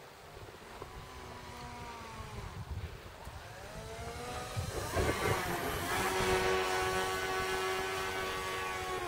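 Radio-controlled model plane with contra-rotating propellers flying past, its motor and propellers making a whine. The whine first falls in pitch, then rises and grows louder from about four seconds in, holds steady at its loudest, and drops sharply in pitch near the end.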